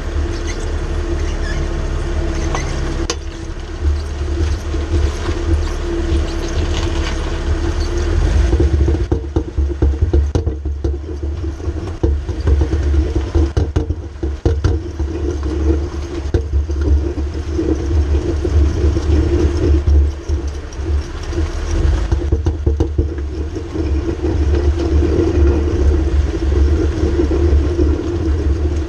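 Mercedes ML350 being driven with a worn driveshaft carrier bearing: a continuous low rumble with a steady hum that swells and fades, the noise a bad carrier bearing makes.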